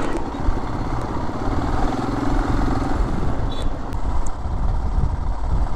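Motorcycle running on the move, a steady, dense low rumble.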